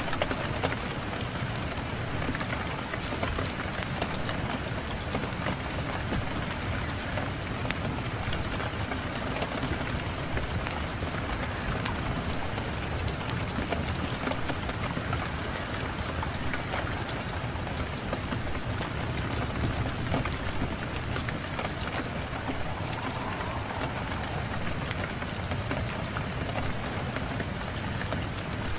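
Fireplace fire crackling with scattered sharp pops over a steady rush of wind.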